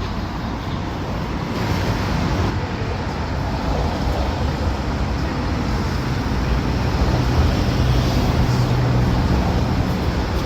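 City street traffic noise: a steady rumble of passing vehicles, with an engine's low hum growing a little louder past the middle and then easing.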